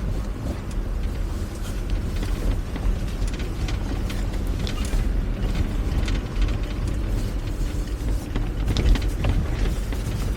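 A Force Gurkha 4x4 driving slowly on an icy, slippery road: a steady low engine and road rumble with scattered small clicks.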